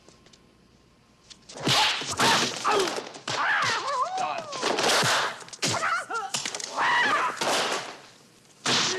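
Martial-arts film fight sounds: punches and kicks landing with whooshes and thuds, mixed with the fighters' wavering shouts and cries. They start about one and a half seconds in and come in a rapid series, with a short pause near the end.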